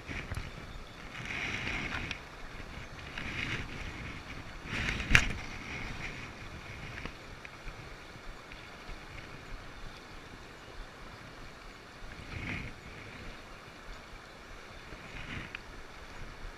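River water running, with wind buffeting the microphone in gusts, and a single sharp knock about five seconds in.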